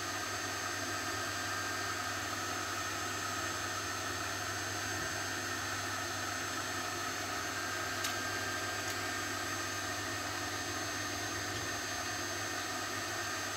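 Steady background hum and hiss with a few fixed tones, unchanging throughout, with two faint ticks about eight and nine seconds in.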